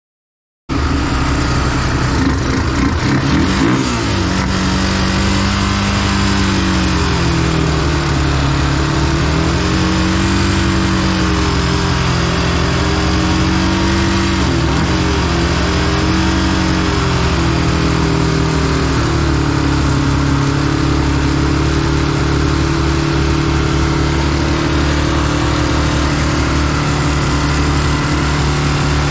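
Honda 300EX quad's single-cylinder four-stroke engine running, its speed wandering up and down, with brief dips about four seconds in and again about halfway through.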